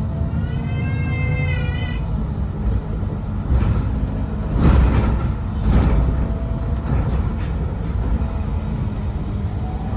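City bus cabin while riding: steady low rumble of the engine and road, with a wavering high tone in the first two seconds and a few louder bumps around the middle.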